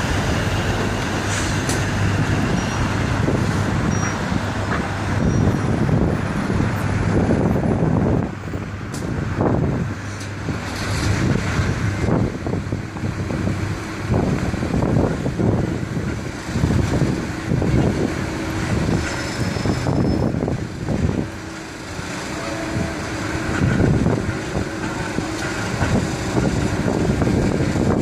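Road traffic passing on the promenade, a continuous rumbling wash of vans and buses that swells and fades, with a steady faint tone coming in about halfway through. Near the end a Bombardier Flexity 2 tram draws up along the track.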